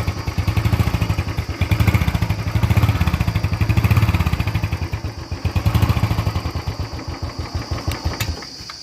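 Royal Enfield Bullet 350's single-cylinder engine on its stock silencer, revved up several times in swells with a steady beat of exhaust pulses, then easing off and fading out near the end.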